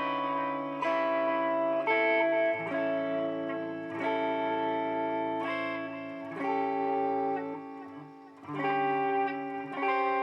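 Electric guitar played through a BOSS DD-8 digital delay pedal in Warp mode: chords strummed every second or two, each ringing on and overlapping the next. The playing dips briefly near the end before new chords come in.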